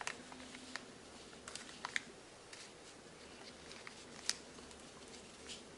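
Origami paper crinkling and creasing under the fingers as it is folded: faint, scattered crackles and small taps, the sharpest about four seconds in.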